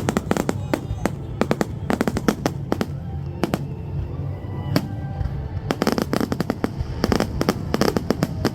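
Fireworks going off in rapid clusters of sharp bangs and crackles, thinning for a few seconds midway and building again near the end, with music and crowd voices underneath.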